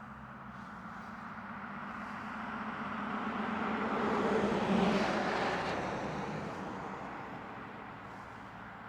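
A vehicle passing by, growing steadily louder to a peak about halfway through and then fading away.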